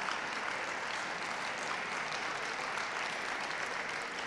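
Ringside audience applauding steadily, a sustained round of clapping that greets a dog just announced in the group line-up.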